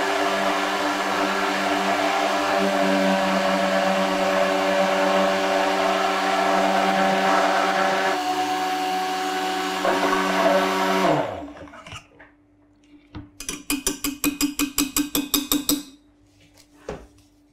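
Robot-Coupe immersion blender running steadily in a saucepan, blending a chocolate ice cream base smooth. The motor is switched off about eleven seconds in and spins down with a falling pitch. A quick, even run of light taps follows near the end.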